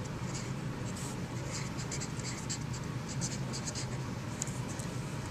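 Green felt-tip marker scratching across poster paper in quick short strokes as words are written, over a low steady hum.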